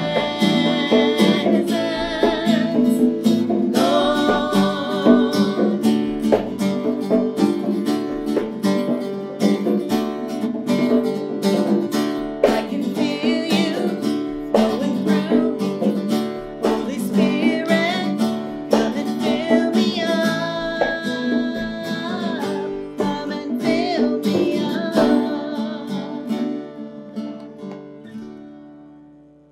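Live worship song on conga drums, electric guitar and acoustic guitar, with singing. The music fades away over the last few seconds.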